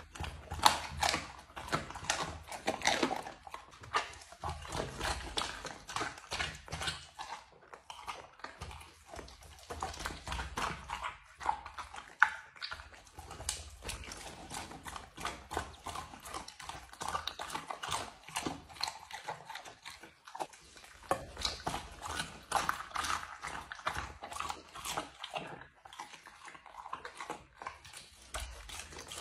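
A Rottweiler eating raw fish and meat off a plate: wet chewing with dense, irregular crunches and bites throughout.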